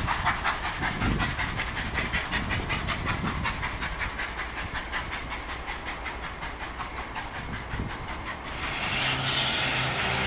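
SNCF 141R steam locomotive working under steam, its two-cylinder exhaust giving a rapid, even run of chuffs with steam hiss. Near the end this gives way to a steady low hum and hiss.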